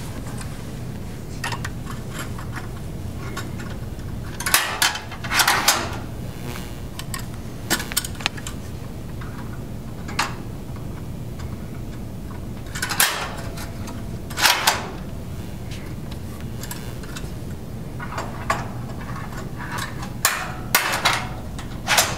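Metal fiber blades being slid into a 2U fiber-optic chassis by hand: repeated short scraping slides, each ending in a click as a blade seats, over a steady low hum.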